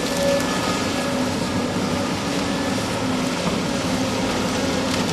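Hydraulic excavators running steadily at demolition work: a continuous diesel engine drone with a faint whine from the hydraulics.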